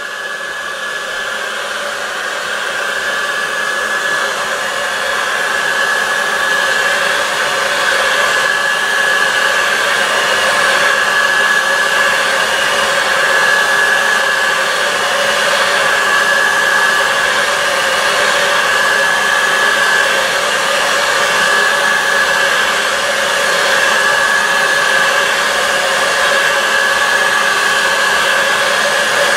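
Black & Decker heat gun blowing steadily: rushing hot air over a steady high whine from its fan. It gets a little louder over the first few seconds, then holds steady, as it heats a sheet of Perspex (acrylic) to soften it for bending.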